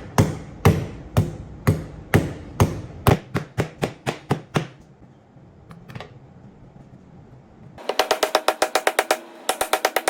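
A series of sharp knocks, about two a second at first, then quicker, then after a short pause a fast run of ringing knocks from about eight seconds in.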